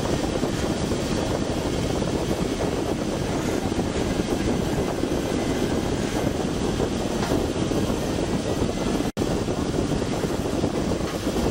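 Express river boat's engine running steadily, a dense drone heard from inside the passenger cabin while the boat is under way. The sound cuts out for an instant about nine seconds in.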